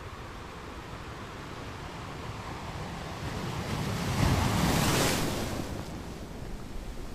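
Ocean water rushing: a steady wash of water noise that swells into one loud wave-like surge about four seconds in, then dies back down a second or so later.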